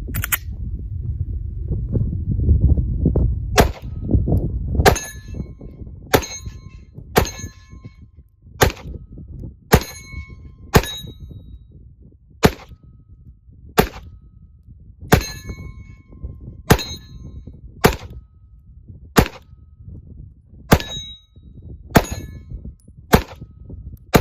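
Glock 19 Gen 5 9mm pistol fired slowly and steadily, about sixteen shots a little over a second apart. Most shots are followed by a clear metallic ding of steel targets being hit.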